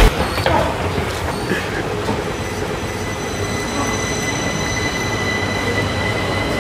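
Washington Metro subway train pulling out along the platform: a steady rumble of wheels and running gear under a few thin, steady high whines.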